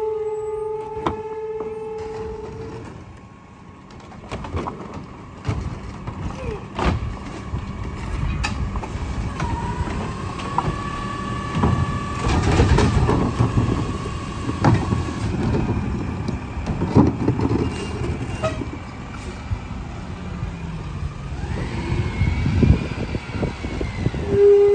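McNeilus rear-loader garbage truck collecting trash: its hydraulic cart tipper whines as carts are lifted and emptied into the hopper, with knocks and bangs of plastic carts and trash. The truck's diesel engine runs underneath. A steady tone fades out about three seconds in.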